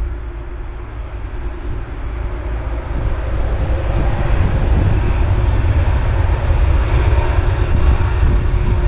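Jet airliner engines roaring, swelling louder about three seconds in and holding steady, as an aircraft takes off.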